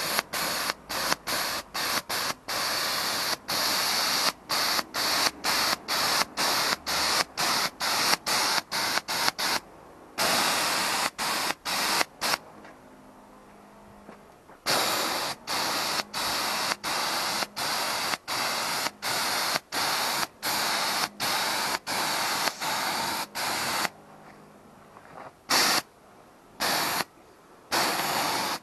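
Gravity-feed paint spray gun hissing in short bursts as the trigger is pulled and released, about two a second, then in longer passes with brief pauses: two-component paint being sprayed onto aluminium engine parts.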